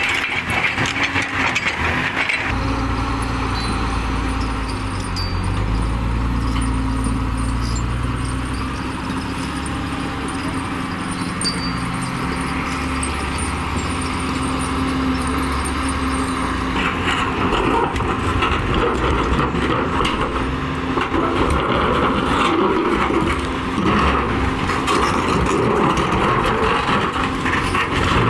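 Diesel engine of a heavy earthmoving machine running under load. The sound shifts suddenly a couple of seconds in. From about halfway through, a rough clattering joins the engine.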